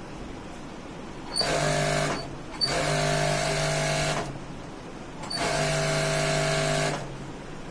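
Industrial sewing machine stitching fabric in three short runs at a steady, even speed, with brief pauses between them. The first two runs open with a sharp click.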